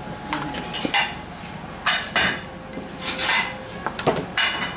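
Metal spoon scraping and clinking against a ceramic serving bowl and plates as food is spooned out: a string of sharp clinks, several with a short ring.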